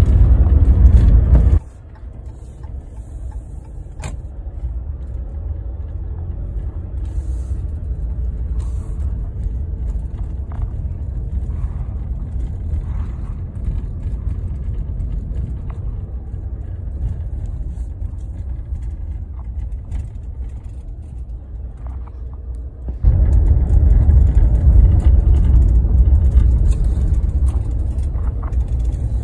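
Ram pickup truck driving, heard from inside the cab: a steady low road and engine rumble that drops away sharply about a second and a half in and comes back louder about six seconds before the end, with a few faint clicks in the quieter stretch.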